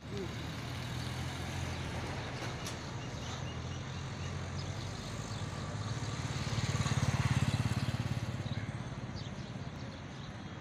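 Car engine running nearby, a steady low hum that swells louder about seven seconds in and then fades, as of a vehicle moving past.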